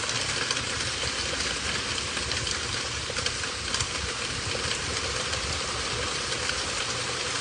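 Steady rain from a rain storm, a dense hiss flecked with the ticks of many drops, over a low rumble.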